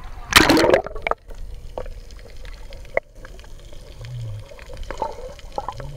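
Camera plunging from the sea surface underwater with a loud splash about half a second in, followed by muffled underwater sound with bubbling and scattered small clicks. Two short low hums come near the end.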